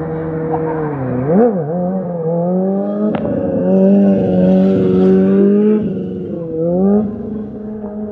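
Motorcycle engine revving while the bike is ridden on its back wheel, loudest as it passes close. The pitch blips about a second in, climbs and is held high through the middle, falls away near six seconds and rises again near seven.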